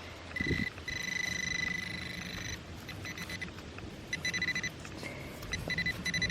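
Handheld metal-detecting pinpointer (White's TRX Bullseye) sounding a steady high beep for about two seconds, then a run of short rapid beeps near the end, signalling metal close to its tip in the dug hole.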